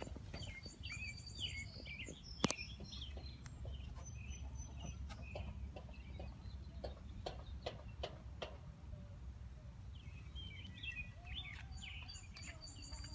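Small birds chirping and trilling in two bursts, one near the start and one near the end, over a steady low rumble. Scattered light footsteps on gravel run through it, with one sharp click about two and a half seconds in.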